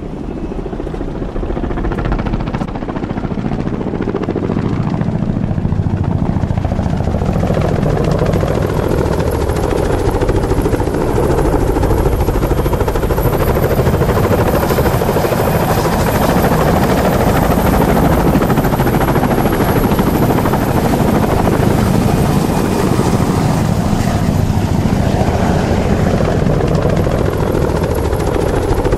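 Helicopter rotor and engine noise, building over the first few seconds and then running steadily, with a thin high whine that wavers in pitch.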